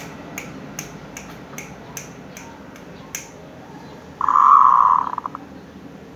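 Zebra dove (perkutut) cooing: one loud, burred call about four seconds in that breaks into a quick stutter as it ends. Before it, a run of faint, even ticks about two and a half a second.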